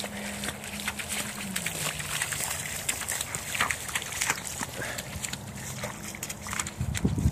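A child's rubber boots splashing and sloshing through a shallow puddle on pavement, a run of irregular wet steps.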